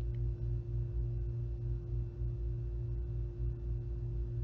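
A steady ringing tone of unknown origin over a low, wavering hum.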